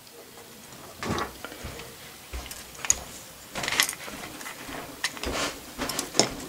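Small metal parts handled by hand as a threaded lamp stem is screwed into a model dynamo's metal base: irregular clicks, taps and short scrapes, with no steady rhythm.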